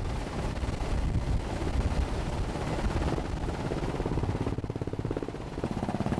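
NH90 Caïman twin-turboshaft helicopter flying low past, a steady rumble of rotor and turbine noise. About two-thirds of the way in, a fast, even rotor-blade beat comes through as it passes close.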